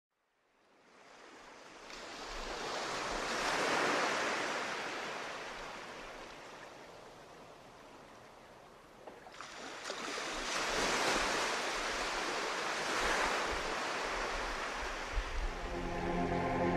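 Rushing, surf-like noise that rises out of silence and swells and ebbs in long waves, with a faint low rumble beneath. Pitched music begins to come in near the end.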